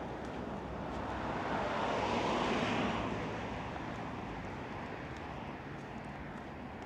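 A road vehicle driving past, its tyre and engine noise swelling to a peak about two to three seconds in and then fading slowly away.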